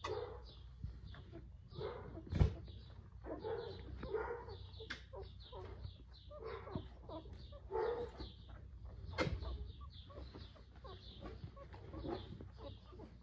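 Young puppies squeaking and whimpering in short, irregular cries while being handled. There are two sharp knocks, about two seconds in and again about nine seconds in.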